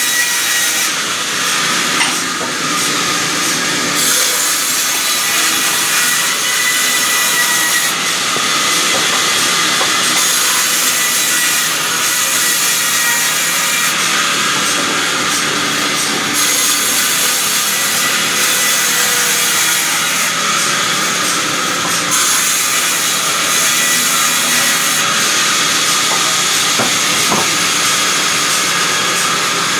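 A sawmill saw cutting timber: a loud, steady, high-pitched whine and hiss of the blade in the wood, running without a break.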